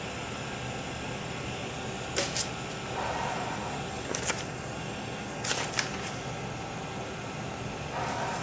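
Viasys Avea ventilator delivering breaths: three short puffs of air, each a quick double, about a second and a half apart, over a steady hiss. The breaths come fast while the ventilator is autocycling on a high-rate alarm.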